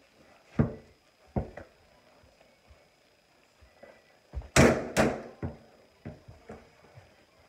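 A few dull thumps, then two loud sharp bangs about half a second apart midway through, followed by lighter knocks.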